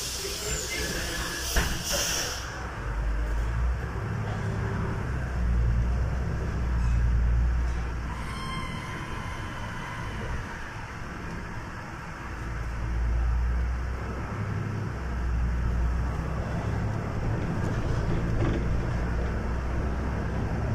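City bus under way: a low engine and road rumble that swells and eases as it drives, with a short burst of hiss in the first couple of seconds.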